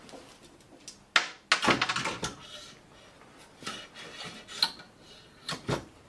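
A bicycle wheel being set into a metal truing stand and the stand's gauge arm adjusted: a string of sharp metallic clicks and clanks, the loudest a little over a second in with a quick cluster after it, and a few more near the end.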